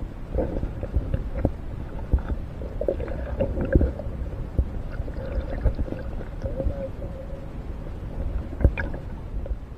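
Muffled water sloshing and gurgling, with scattered knocks.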